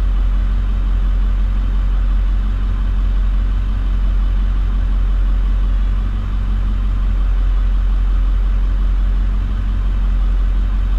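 Vehicle engine idling: a steady, unchanging low hum.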